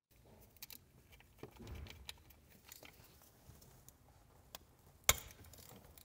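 Light metallic clicks and clinks of a hand tool and small metal parts being handled, with a low rumble near two seconds in and one sharp, loud click about five seconds in. The sounds come from an Allen key working the threaded access plugs out of the engine's timing cover.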